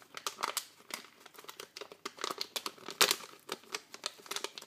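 Plastic bag crinkling and crackling in quick, irregular crackles, loudest about three seconds in, as a small circuit board is worked out of it.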